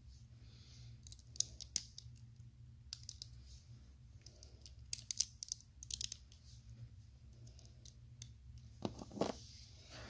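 LEGO plastic bricks and tiles clicking as they are handled and pressed together, in small clusters of sharp clicks a few seconds apart, over a faint low steady hum.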